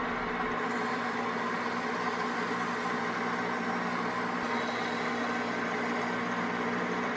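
Metal lathe running steadily with a steady hum, spinning an engine valve while 120-grit sandpaper with wax is held against the valve face, adding a steady hiss.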